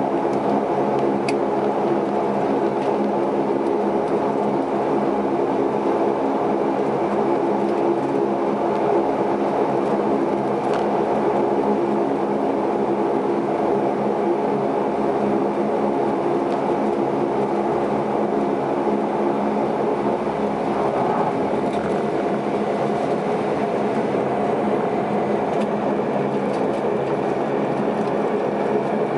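Cabin noise of a Saab 340B's twin General Electric CT7 turboprops taxiing after landing: a steady hum carrying several steady propeller tones.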